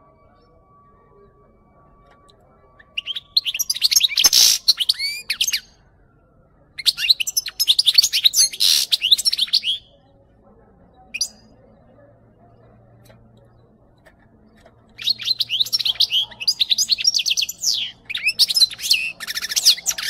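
European goldfinch singing: fast, high twittering song in three bursts of a few seconds each, with one short call between the second and third.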